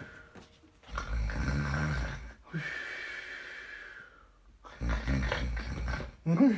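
A man snoring: two long snores, one about a second in and one near the end, each closed by a short snort. The final snort is the loudest.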